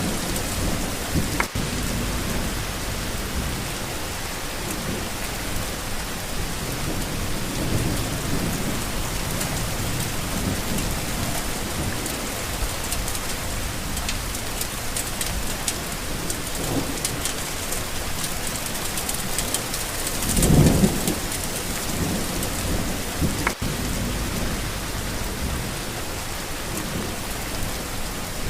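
Steady rain falling, an even hiss, with a few low rumbles rising under it; the loudest rumble comes about twenty seconds in.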